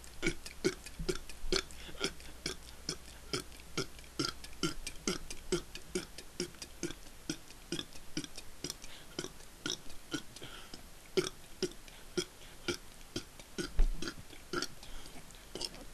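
A man burping in rapid succession on an empty stomach: short, separate burps at about three to four a second, with one louder burp near the end.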